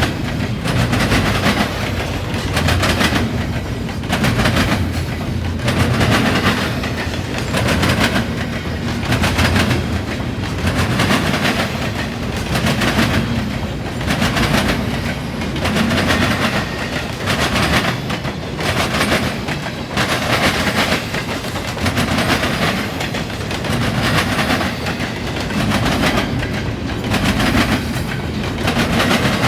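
CSX intermodal freight train rolling fast over railroad diamond crossings, its wheels hammering across the crossing in a steady, repeating clatter of bangs.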